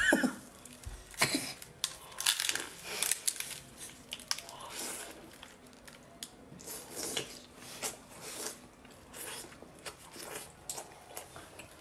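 Close-miked eating sounds of a person biting into a bundle of razor clams in chili sauce, then chewing. The bites, crunches and tearing sounds come irregularly throughout.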